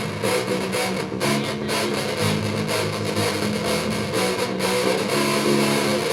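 Guitar playing an instrumental passage of a live song. Held chords change every second or so.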